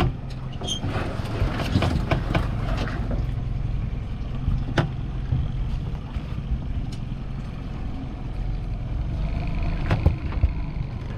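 Small Honda four-stroke outboard motor running steadily, pushing an aluminium dinghy along at low speed. A few sharp knocks and clicks on the boat stand out over the drone, most of them in the first three seconds, with single ones about five and ten seconds in.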